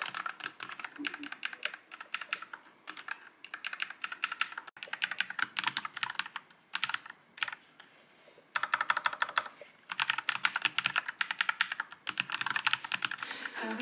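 NuPhy Air96 low-profile mechanical keyboard being typed on in fast runs of key clicks. The runs break off briefly several times, with a longer pause a little past the middle.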